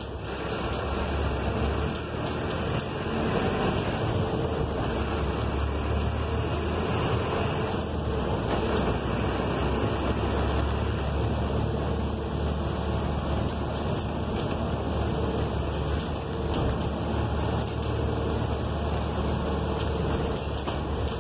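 City bus driving in traffic, heard from the driver's cab: a steady low engine drone with road noise.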